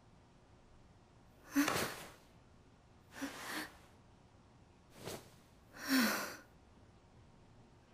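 A young woman's voice gasping and sighing in shock: four short, breathy gasps with hardly any voice in them.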